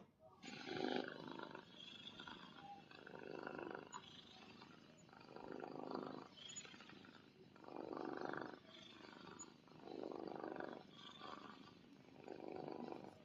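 Dinosaur creature sound effect: a quiet, low growl repeated about six times, roughly every two seconds, in a slow, even rhythm.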